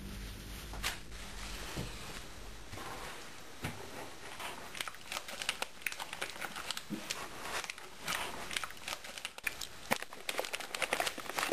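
A plastic snack bag of peanuts crinkling and rustling as hands open it and dig in, in many quick irregular crackles that grow denser towards the end. A low hum fades out in the first few seconds.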